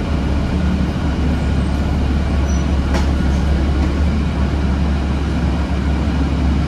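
Inside a city transit bus: a steady low engine drone as the bus slows and comes to a stop, with a single sharp click about three seconds in.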